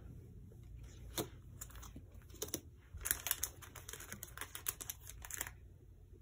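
Faint clicks and taps of photocards and small collectibles being picked up, gathered and set down, with a quick flurry of clicks from about three seconds in until a little past five seconds.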